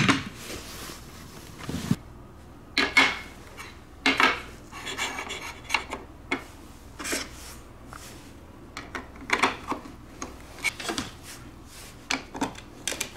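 LEGO bricks being handled and fitted together: irregular plastic clicks, taps and brief scraping rattles.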